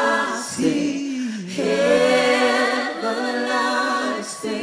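Worship singers holding long, sliding notes of a slow praise chorus in several voices.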